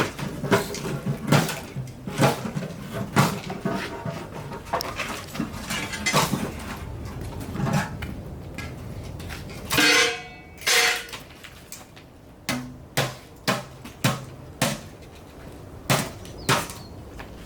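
Irregular metallic clanks and knocks of equipment being handled, with a louder clank that rings briefly about ten seconds in.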